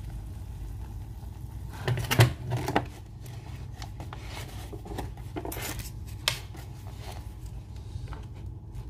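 A paper instant-noodle cup is handled: its foil lid is pressed down with crinkling and a cluster of sharp clicks about two seconds in. More single clicks and taps follow around five to six seconds in as a plastic fork is set on the lid. A steady low hum runs underneath.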